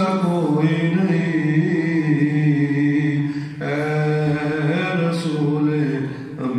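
A man singing an Urdu naat, a devotional poem in praise of the Prophet, unaccompanied, in long drawn-out melodic phrases. There is a short break for breath about three and a half seconds in.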